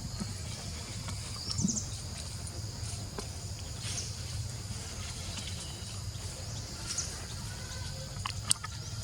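Steady outdoor insect buzzing, with a few short chirps scattered through and one sharp click near the end.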